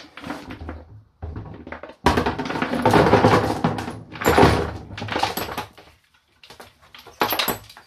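A homemade ball mill jar is upended and shaken over a plastic tub, its grinding media rattling and knocking inside as the ground aluminium powder pours out. Light handling noise comes first, then loud clattering starts about two seconds in and comes in bursts with short pauses.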